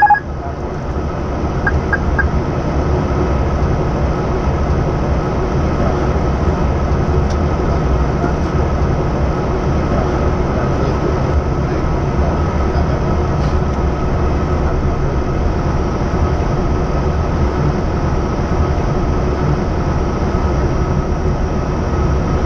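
Steady in-flight cockpit noise of an Airbus A320 on final approach: a constant low rumble of airflow and engines, with a faint steady whine running under it.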